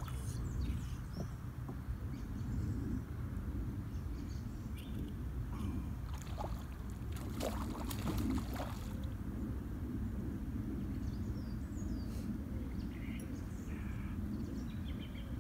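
Steady low rumble of wind buffeting the microphone, with a few brief clicks and rustles in the middle.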